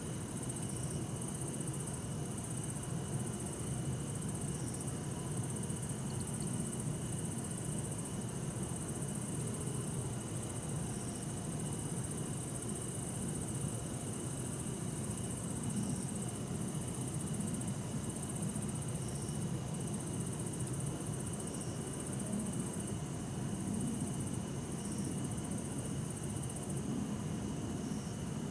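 Crickets singing, among them bell crickets (suzumushi), a steady high trill that pulses on and off every second or two. Underneath is a low, steady hum of distant city traffic.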